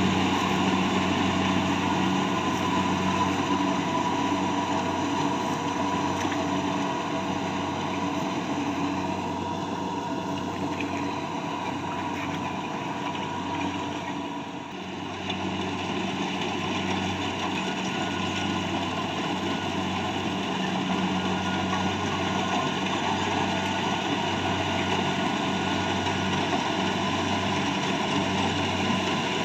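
Rice harvester's engine running steadily, with a brief dip in loudness about halfway through.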